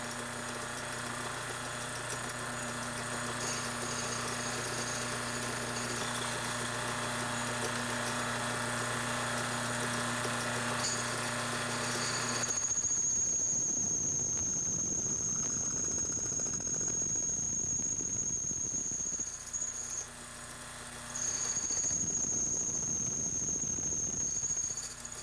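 Lathe running with a brass clock barrel spinning in the chuck. About halfway through, the cutting tool takes a cut on the barrel's outside diameter, bringing in a high, steady squeal over a rough cutting noise. The cut breaks off briefly and then resumes near the end.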